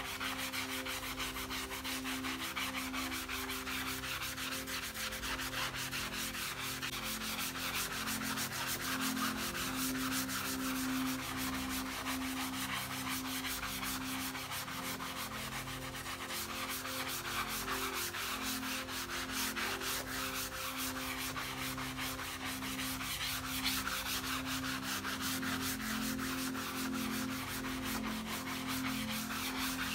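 A soft sponge lathered with dish soap scrubbing back and forth over a mouse pad's surface: steady, continuous rubbing strokes.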